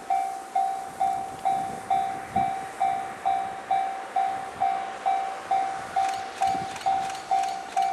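Japanese railway level-crossing warning bell ringing in a steady, even rhythm, a little over two strikes a second, each strike a single ringing tone that fades. A few faint clicks come in near the end.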